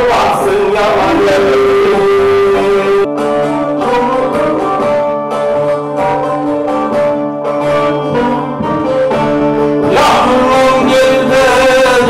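Alevi semah music: bağlamas (long-necked Turkish lutes) strummed and plucked with a man singing. About three seconds in the music breaks off abruptly at an edit and the bağlamas carry on mostly alone, with the singing returning near the end.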